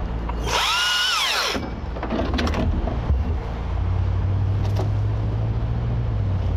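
Husqvarna T542i XP battery chainsaw revved once about half a second in, its motor whine rising and falling over about a second. A steady low hum sets in about four seconds in.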